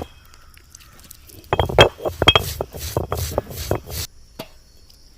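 A quick run of clinks and knocks from hard objects being handled, starting about one and a half seconds in and lasting some two and a half seconds, with one more single click near the end.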